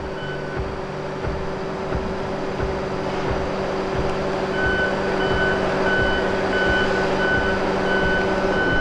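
A Tigercat 234B knuckleboom log loader's diesel engine running steadily, with machine noise slowly growing louder. An electronic warning beeper sounds briefly at the start and again from about halfway through, at about two short beeps a second.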